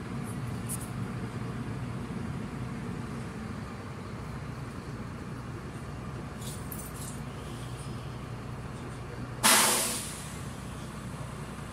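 Steady low engine hum inside a city bus, with faint rattles. About nine and a half seconds in, a sudden loud hiss of compressed air from the bus's pneumatic system fades away within about half a second.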